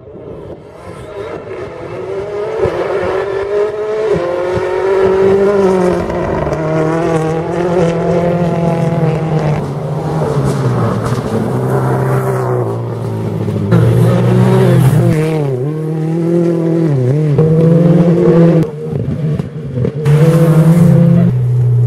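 Rally car engines at full throttle, their pitch climbing and then dropping in steps with quick gear changes as the cars come up and pass. The sound jumps abruptly a few times from one car to the next.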